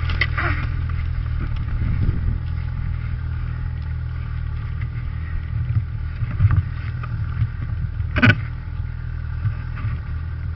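Snowmobile engine idling steadily, with one sharp knock about eight seconds in.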